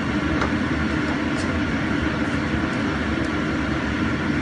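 Steady rushing noise of a wok of diced chicken and mushroom filling cooking on the stove, with a few faint clicks of a spatula against the pan.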